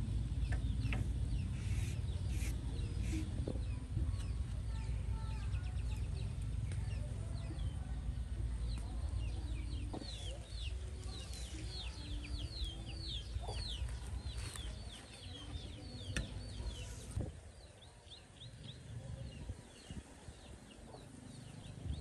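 Birds calling, with low clucking and a dense run of short, high, falling chirps in the middle, over a steady low rumble that drops away after about 17 seconds.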